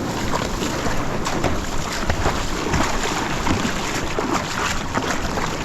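Wind buffeting the microphone over splashing water from a small wash of surf around a surf ski, with many short splashes and knocks throughout.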